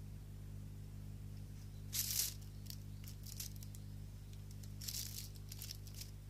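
Plastic bin-liner bag rustling and crinkling as a kitten paws at it, in two short bursts about two seconds in and about five seconds in, with scattered small crackles between, over a steady low hum.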